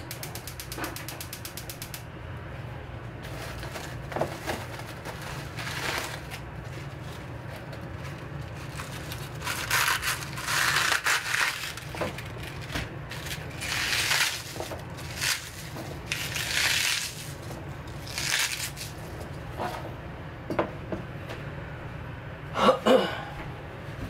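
Crisp rustling and crunching of fresh cabbage leaves being torn and handled on a cutting board, in several short bursts, over a steady low hum. A louder clattering knock comes near the end.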